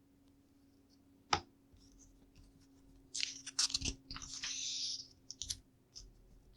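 LEGO plastic pieces being handled and clicked: one sharp click about a second in, then a run of clicks with rustling from about three to five seconds, and a few more light clicks near the end.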